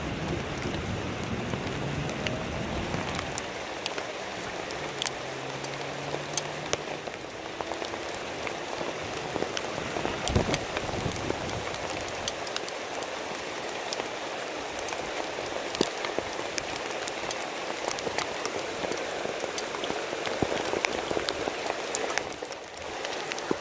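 Heavy rain falling steadily, with sharp individual drops tapping through the steady hiss. A low rumble dies away in the first few seconds.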